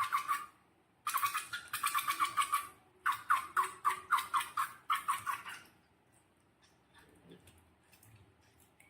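Rubber balloon squeaking as it is rubbed or squeezed: a rapid chattering squeak in three bursts of a few seconds each. Faint small clicks follow near the end.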